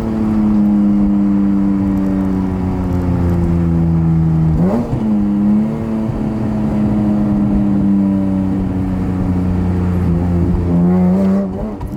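BMW E46 M3's S54 inline-six running on the road, its note slowly falling as the car slows. There is a quick rev blip about five seconds in and another short rise in revs near the end.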